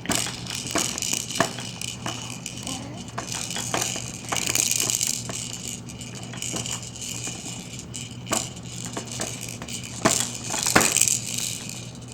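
Plastic toys on a baby's Jumperoo activity jumper rattling and clicking as the baby plays, with irregular knocks throughout and louder stretches of rattling about four seconds in and again near the end.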